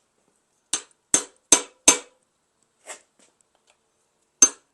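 Hammer striking a steel chisel on a Mazda RX-8 13B rotary engine being torn down: four sharp blows in quick succession, a lighter tap, then another hard blow near the end.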